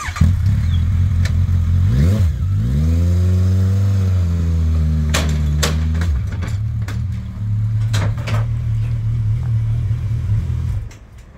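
Suzuki GSX1250FA motorcycle's inline-four engine starting up, given a quick blip of the throttle about two seconds in, then held at raised revs for a few seconds as the bike is ridden up a ramp into a van. It drops back to a lower, steadier run at about six seconds, with a couple of sharp clanks, and is switched off suddenly near the end.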